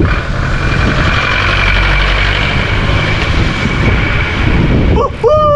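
Steady roar of a van's engine running close behind cyclists on a road, mixed with wind on the microphone. Near the end, a loud, drawn-out call, held and then falling in pitch.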